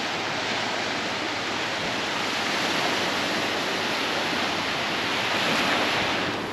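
Sea waves washing onto a beach: a steady surf hiss that swells gently a couple of times.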